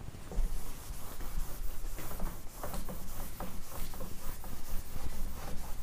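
Whiteboard eraser rubbing back and forth across a whiteboard in quick repeated strokes, wiping off marker writing.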